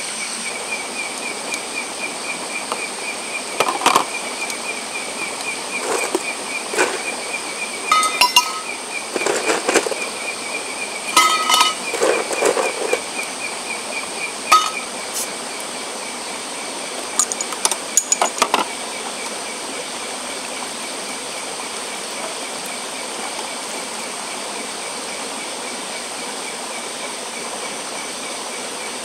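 Glass bottles and a metal tumbler clinking and knocking as drinks are handled on a camp table, a scatter of sharp clinks in the first two-thirds. Under it, a steady chorus of night insects with a pulsing high trill.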